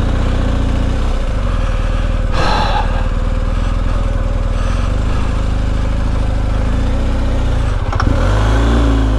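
BMW adventure motorcycle engine running at low speed off-road, heard from the rider's seat. There is a short rush of noise about two and a half seconds in, a click about eight seconds in, and then the engine revs rise and fall near the end.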